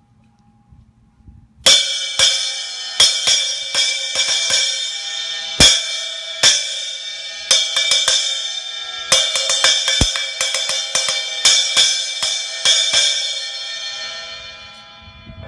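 Zildjian 10-inch A splash cymbal, cracked and repaired, struck over and over in a sound test: sharp hits, some in quick pairs, each with a bright ring. It starts about a second and a half in and rings down near the end.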